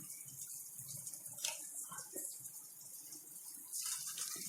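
Small balls of rice and urad dal batter deep-frying in hot oil, a steady sizzling hiss.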